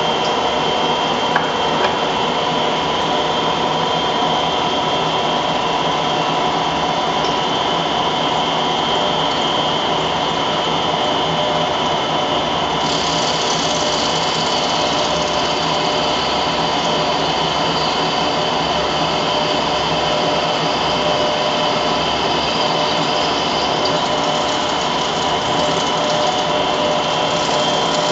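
Small turret lathe running steadily while machining a model diesel engine crankcase, its motor and gearing giving a constant whine. A higher hiss joins about halfway through and eases off near the end, with a couple of light ticks near the start.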